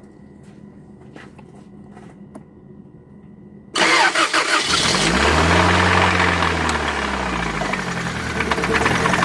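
A car engine firing up suddenly about four seconds in, after a few faint clicks, revving up and falling back over a few seconds, then running at a fast idle. The engine has a rod knock that is being chased.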